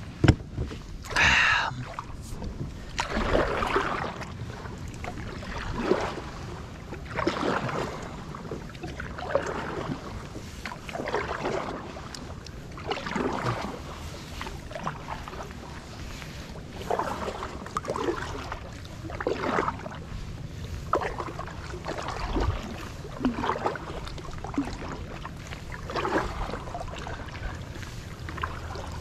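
Kayak paddle strokes: the blade swishes and splashes through the water in a steady rhythm, about one stroke every one and a half to two seconds, over a low rumble of wind on the microphone. A single sharp knock comes right at the start.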